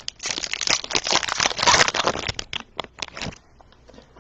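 Trading-card pack wrapper being torn open and crinkled by hand: a dense crackling that stops about three and a half seconds in.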